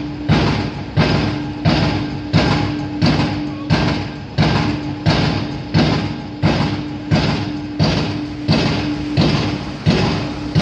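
Piling rig's hammer driving piles: sharp, evenly spaced blows at about three every two seconds, over the steady hum of the rig's engine.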